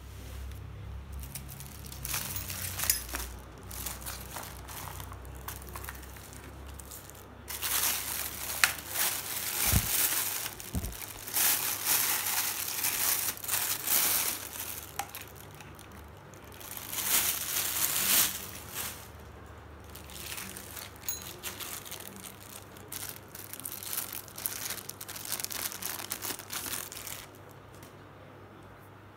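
Clear plastic packaging crinkling and rustling in the hands as drill accessories are unwrapped, in irregular bursts of crackly rustle, loudest in the middle and stopping shortly before the end.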